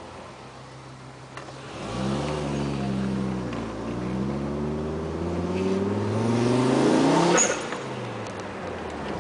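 Fiat Marea Weekend turbo's five-cylinder engine pulling away from idle and accelerating hard, revs rising, dipping at a gear change, then climbing again. At lift-off, about seven and a half seconds in, the revs drop suddenly and the HKS SSQV blow-off valve vents in a short sharp burst of air. The engine then runs on at lower revs.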